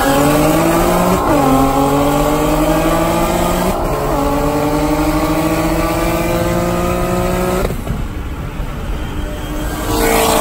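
Car engine at full throttle in a street race, its pitch climbing in each gear, with two upshifts (about a second in and about four seconds in), then lifting off about three-quarters of the way through. Another burst of engine noise rises near the end.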